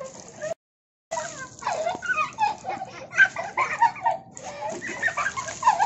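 Children laughing and squealing while water is poured over a girl's head. The sound cuts out completely for about half a second near the start.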